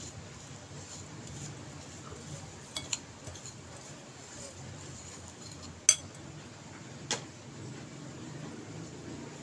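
Metal spoon stirring dry rolled oats in a ceramic bowl, with a few clinks of the spoon against the bowl: two light ones about three seconds in, a sharp loud one about six seconds in and another about seven seconds in.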